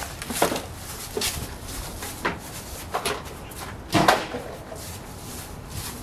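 A handful of separate short knocks and clicks, the loudest about four seconds in, over a faint steady background.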